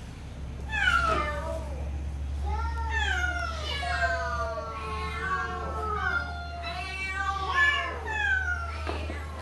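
Several cats in transport carriers meowing at once, their overlapping calls rising and falling in pitch, over a steady low hum.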